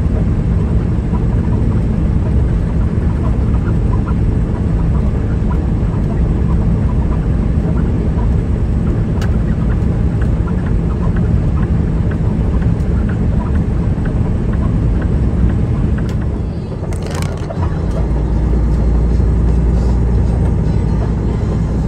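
Semi-truck's diesel engine running steadily with road noise. About three-quarters of the way through there is a short click and the sound dips, then settles into a deeper, steady rumble.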